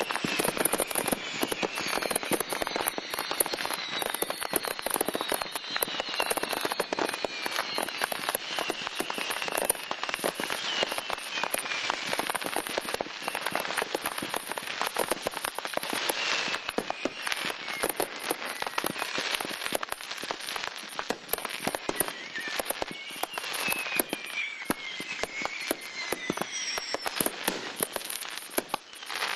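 A huge pile of fireworks going off all at once: a continuous, dense barrage of firecracker bangs and crackling. Whistling fireworks falling in pitch cut through it now and then, most clearly in the first half and again near the end.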